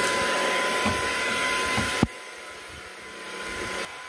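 A household appliance motor runs with a steady rush of air. About halfway through it cuts off abruptly with a click, and a quieter hiss follows, ending shortly before the close.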